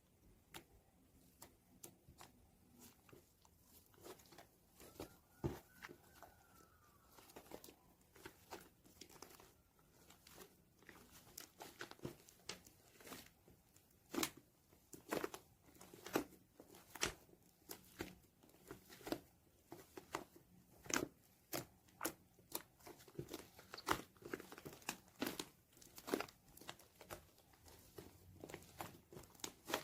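Slime being squished and pressed by hand, giving a run of sharp, wet pops and clicky crackles that come thicker and louder in the second half.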